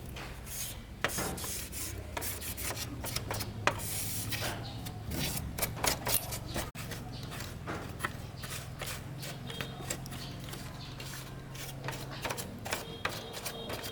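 Irregular hand rubbing and scraping strokes on a hard surface, many in quick uneven succession, with a steady low hum underneath.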